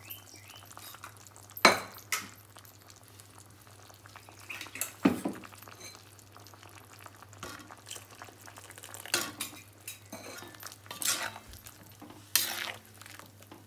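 Metal spatula stirring coconut-cashew paste into a simmering vegetable gravy in a steel kadai, scraping the pan, with a handful of sharp knocks of the utensil against the pan spread through.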